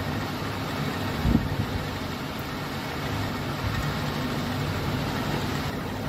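Hot oil in a kadhai sizzling and bubbling steadily around frying dough balls, over a steady low hum. A brief low knock about a second in.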